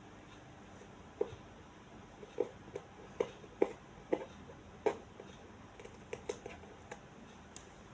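A series of about a dozen short, light knocks or taps at an irregular pace, starting about a second in and loudest in the middle, over a quiet background.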